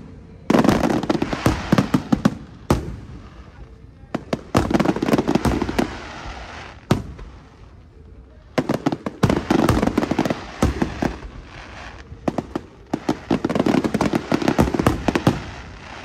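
Aerial firework shells bursting in volleys of sharp cracks and crackle. Four dense clusters come a few seconds apart, with quieter gaps between them.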